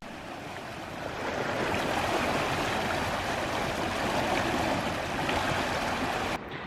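Steady rush of running water, swelling about a second in and cutting off suddenly just before the end.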